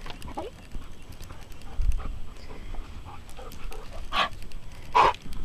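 Hoofbeats of a small Spotted Saddle Horse moving at a steady gait on a soft dirt arena, with light clicks throughout. Two loud, short bursts of noise come about a second apart near the end.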